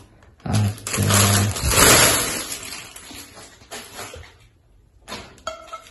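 Clear plastic wrapping crinkling and rustling as it is pulled off a nonstick deep frying pan, loudest about two seconds in and dying away after about four seconds.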